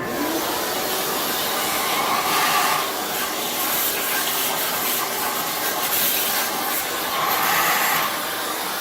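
Loud, steady rushing hiss of moving air, swelling twice.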